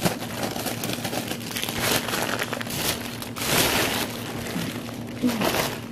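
Plastic bags crinkling and rustling as they are handled and pulled about, with a louder burst a little past halfway.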